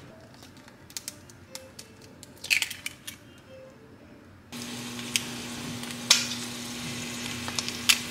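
Eggs cracked into an oiled frying pan with a few clicks and a short crackle, then, starting suddenly about four and a half seconds in, eggs frying in hot oil with a steady sizzle and scattered pops over a steady low hum.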